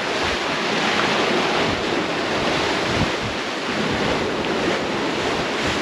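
Strong, steady wind of an arriving squall front buffeting the microphone, over the rushing wash of rough sea and the catamaran's wake.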